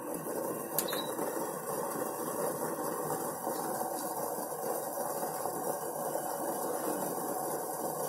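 Water with crushed ginger coming to the boil in a stainless steel saucepan on an induction cooktop: a steady, crackly bubbling hiss, with one short click about a second in.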